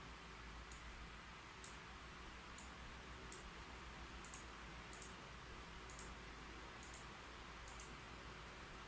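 Faint, slow keyboard typing: single keystrokes clicking about once a second, about ten in all, over a steady low hiss.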